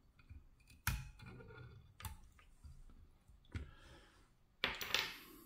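Sharp clicks and small knocks of fly-tying tools being handled and put down after a whip finish: three clicks spread over the first few seconds, then a louder rustle near the end.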